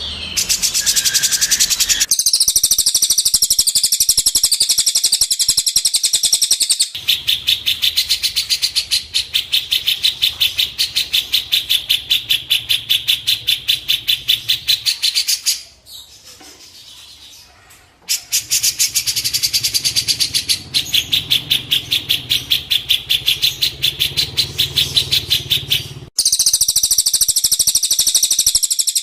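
Songbird singing a long, fast, even trill of high chattering notes, repeated many times a second. It breaks off for about two seconds around the middle and briefly again near the end.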